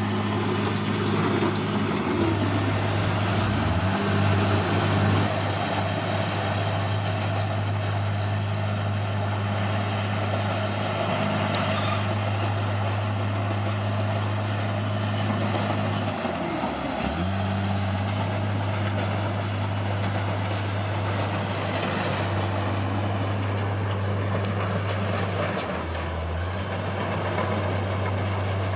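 Caterpillar D6R bulldozer's diesel engine running steadily, its pitch dipping briefly three times, about 3, 17 and 26 seconds in.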